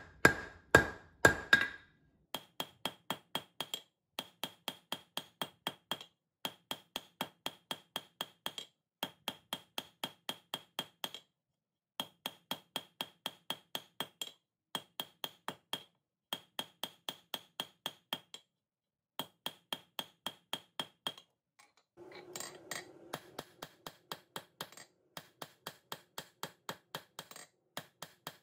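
Blacksmith's hammer striking a hot steel bar on the anvil in quick, even blows, about four or five a second, in runs of a few seconds with short pauses. Each blow rings with a high tone; in the last several seconds the ring turns lower.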